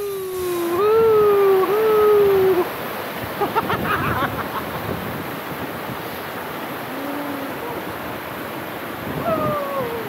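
Steady rushing water of the waterfall stream. For the first two and a half seconds a louder voice-like wavering tone slides down and back up over it, and a few short chirps follow later.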